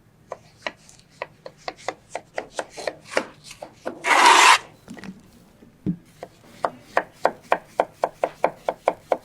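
Knife cutting tomatoes into pieces on a cutting board: steady chopping strokes, about three a second. About four seconds in there is a brief louder scraping sound, then a dull thud, before the chopping resumes.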